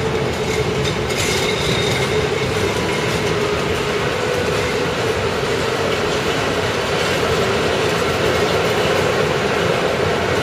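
Passenger railway coaches rolling past, a steady rumble of wheels on rail with a steady whine over it.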